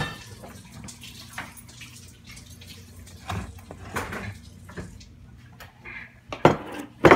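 Kitchen handling noises as a plastic-wrapped pie dish is taken out of a refrigerator: scattered clicks, rustles and clatter over a low steady hum, with two loud knocks near the end.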